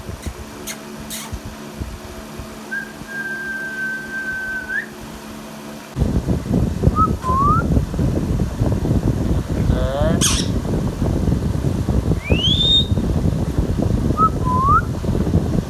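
Indian ringneck parrot whistling: one long level whistle, then short upturned notes and quick rising whistles. From about six seconds a steady rushing noise runs underneath, and a brief sharp squawk comes about ten seconds in.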